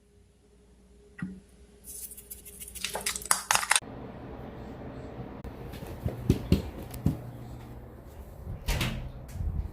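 Utensils and containers clinking and knocking, with a run of crackling clicks about two to four seconds in, then scattered knocks.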